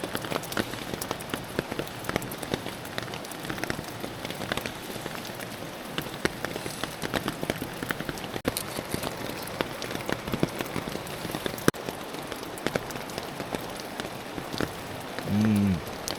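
Steady rain falling on a small Tyvek tarp overhead, a constant hiss with many sharp individual drop taps. Near the end a brief low hum cuts in.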